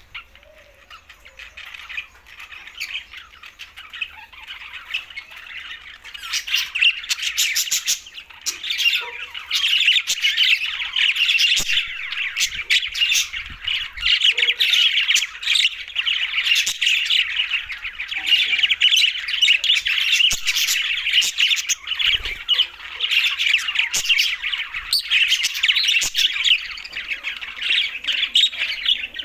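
Budgerigars chattering and chirping in a dense stream of rapid warbles and squawks. It is fainter for the first few seconds and grows louder and continuous about six seconds in.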